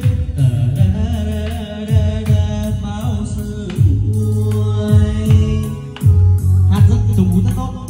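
A song with singing and a deep bass-drum beat, played loud through a pair of 30 cm speakers driven by an F10 powered mixer.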